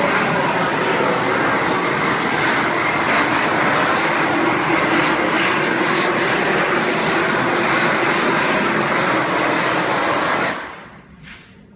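An 18,000 BTU propane shrink-wrap heat gun running with a steady rushing flame noise as it heats the shrink-wrap film, then shut off abruptly about ten and a half seconds in.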